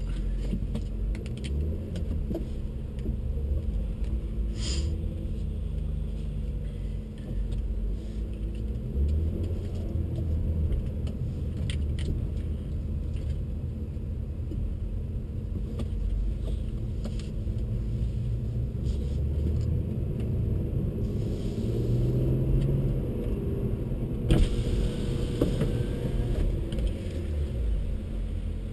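BMW 135i's turbocharged N55 straight-six running at low revs while the car creeps along, heard from inside the cabin as a low engine note whose pitch drifts up and down. A sharp click about 24 seconds in.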